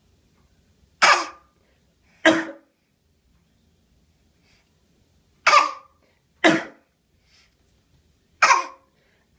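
A baby giving short fake coughs, five in all, coming in twos about a second apart with quiet pauses between.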